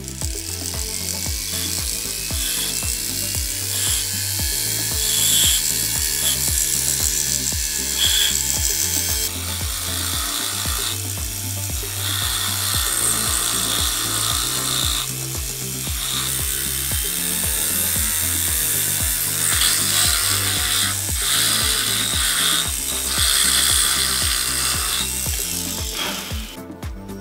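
A flexible-shaft rotary tool's small burr grinding detail into a marble bust. The high grinding noise stops and starts several times as the tool is lifted and set back to the stone. Background music with a steady beat plays underneath.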